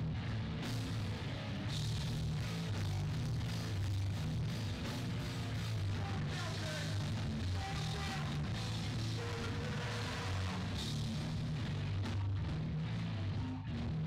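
Hardcore punk band playing live: heavy distorted electric guitars and bass chugging over pounding drums and cymbals.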